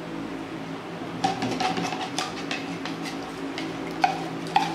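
Spatula scraping and tapping in a non-stick pan while stirring a thick custard-like paste: a run of short scrapes and knocks starting about a second in.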